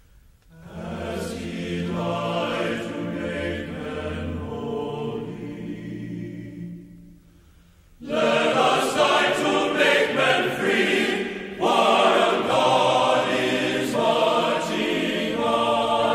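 A choir singing. It stops briefly about halfway through, then comes back louder and fuller.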